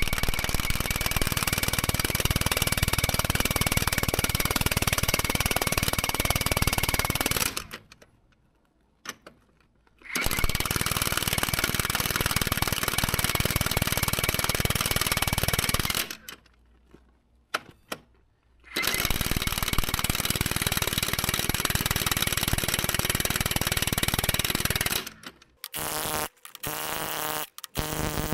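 Impact wrench hammering at full power, tightening the mounting bolts of Caterpillar D9G bulldozer track rollers. It runs in three long bursts of about six seconds each, with short pauses between, then gives a few quick blips near the end.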